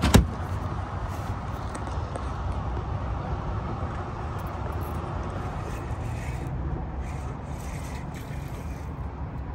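Steady wind rumble on the microphone over open water, with one sharp knock right at the start.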